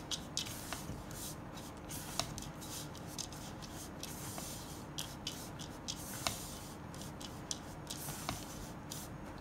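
Silicone spatula stirring a dry mix of flour, oats, chopped cashews and chocolate chips in a plastic bowl: a soft, continuous rubbing scrape with scattered light ticks.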